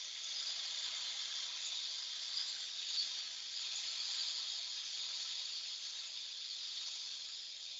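Liquid nitrogen hissing steadily as it runs from a hose into the CXT 353 aliquotter's reservoir and boils off into vapour.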